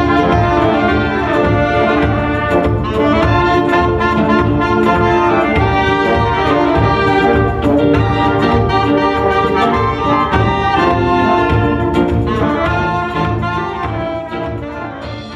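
Balkan-style band playing live: saxophone and brass horns carry a quick-moving melody over a drum kit, easing off slightly near the end.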